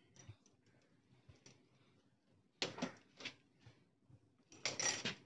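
Faint clicks and rattles of keys and the plastic headlamp housing of a motorcycle being handled, with two louder rattles about two and a half seconds in and near the end.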